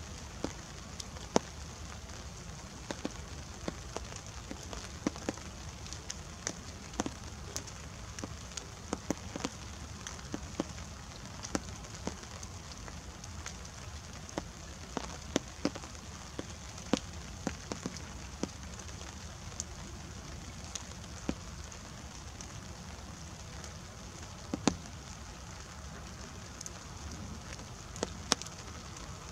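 Light rain: single drops tapping close by at irregular moments, several a second at times, over a steady soft hiss.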